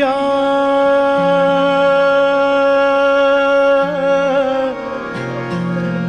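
A male singer holds one long note in a Punjabi Sufi folk song over a harmonium, with sarangi and acoustic guitar accompanying. The note breaks into a short ornament about four seconds in and ends just before five seconds, while the accompaniment plays on.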